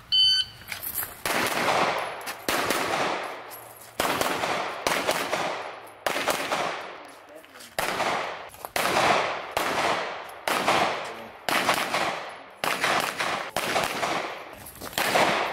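Rapid 9mm pistol fire from a Glock: a shot timer's short beep right at the start, then strings of shots, often two in quick succession, separated by short pauses, each shot trailing off in a brief echo.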